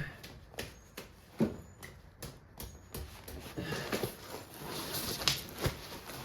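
Scattered clicks, knocks and low thuds of tools and parts being handled in hand work on the car, with the sharpest knock about a second and a half in and two more near the end.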